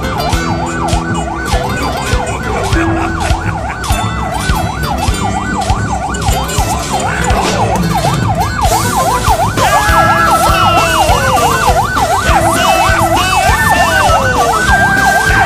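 Ambulance siren yelping, its pitch sweeping rapidly up and down about three times a second. From about ten seconds in, a second siren pattern of steady tones and slower falling wails sounds over it.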